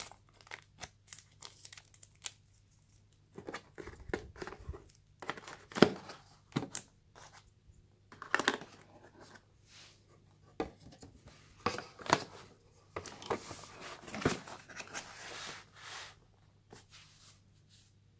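Plastic packaging bags crinkling and small phone accessories clicking and knocking as they are handled in and around a cardboard phone box, in scattered short bursts, with one louder knock about six seconds in and a longer stretch of rustling near the end.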